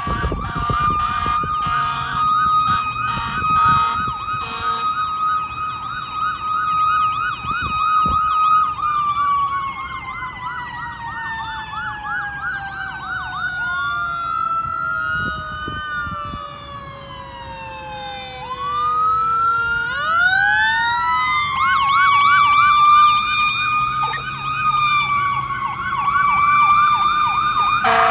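Fire truck sirens sounding on an emergency run: a fast warbling yelp overlaps a slower wail that glides steadily down over about ten seconds, then winds back up and rises and falls. A few short, steady-pitched blasts sound in the first five seconds and again at the very end.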